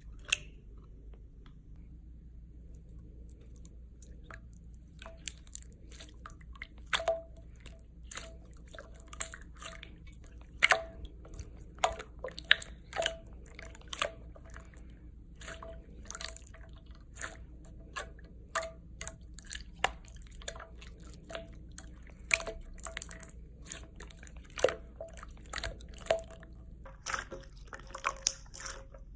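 Slime being squished and pressed by hand, making irregular wet clicks and pops. These are sparse at first and come thick and fast from about five seconds in.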